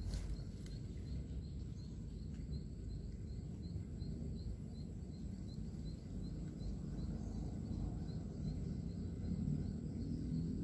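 Outdoor ambience at the water's edge: a steady low rumble, with a faint insect chirping about three times a second.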